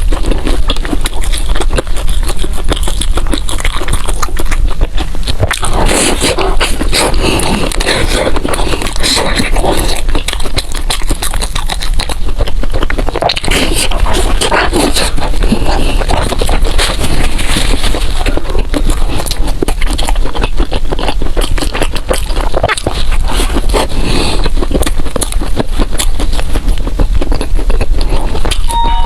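Close-miked eating sounds: chewing, with a dense run of small crackles and clicks.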